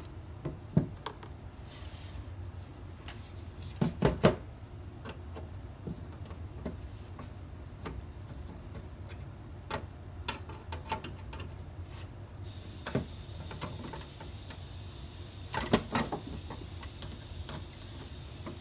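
Scattered clicks and knocks of a screwdriver and plastic parts as two screws are taken out of an Aprilaire 400 humidifier's plastic housing and a part is shifted. The knocks come loudest in clusters about four seconds in and near the end, over a low steady hum.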